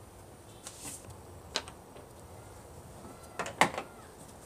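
Clicks and knocks of hard plastic as a BMW 328i's engine air box cover and a Torx screwdriver are handled. There is a soft scrape a little before one second, a single click at about one and a half seconds, and a quick cluster of louder clicks about three and a half seconds in.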